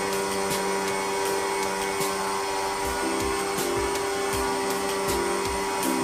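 Pressure washer running steadily: a motor drone under the hiss of the water jet as it cleans an air conditioner's outdoor condenser unit.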